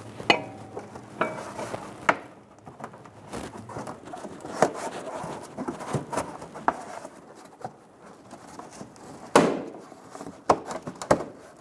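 Irregular clicks, knocks and rubbing of the plastic fender liner and bumper as gloved hands pull them apart, with a louder knock about nine and a half seconds in.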